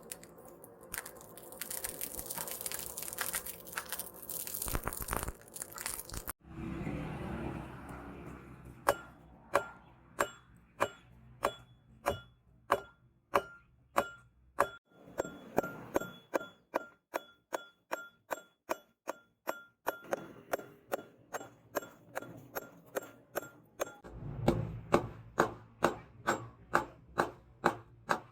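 Hand hammer striking steel on an anvil in a steady rhythm, about two blows a second, each with a short metallic ring. Before the hammering begins there are several seconds of steady rushing noise.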